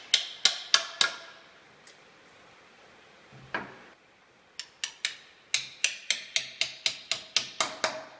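Small hammer tapping wooden tenons into teak door-frame parts: four sharp knocks at about four a second, a single softer knock about halfway through, then a run of about fourteen knocks at the same pace, several with a faint ring.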